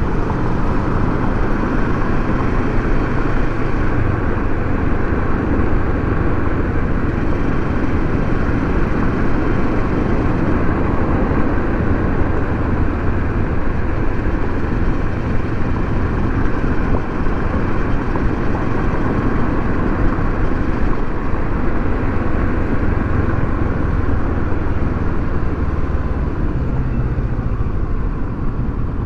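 Kawasaki Versys 650 parallel-twin engine running steadily while riding, mixed with a constant rush of wind over the microphone.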